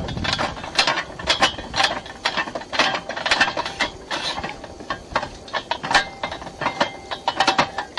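Metal clicking and clanking from a simple water-well drilling rig at work: rapid, irregular sharp knocks, about three or four a second, with no pause.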